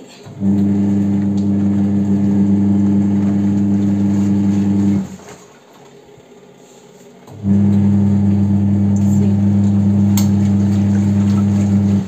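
Mika twin tub washing machine's motor humming steadily in two runs of about four and a half seconds each, with a pause of about two seconds between them.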